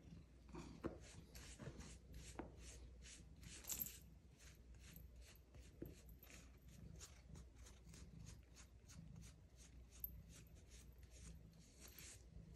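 Faint brush strokes through a cat's fur, a quick soft rasp repeated about three times a second.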